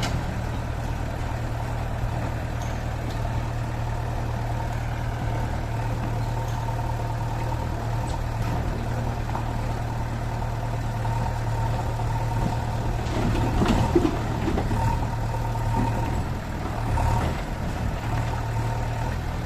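Heavy diesel engine running steadily, with a faint steady whine above the drone and a few knocks and clanks about two-thirds of the way through and again near the end.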